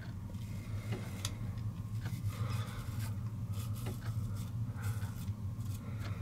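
Five-blade razor cartridge of a Gillette Labs Heated Razor scraping through lathered stubble on the chin in a series of short, slow strokes, over a steady low hum.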